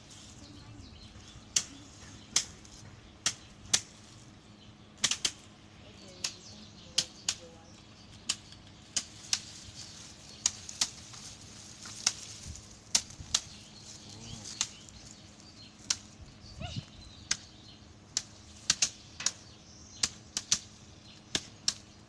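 Wooden sticks beating piles of dried bean plants on bare ground, threshing the beans out of their pods. The strikes come as sharp, irregular cracks about once a second, sometimes two in quick succession.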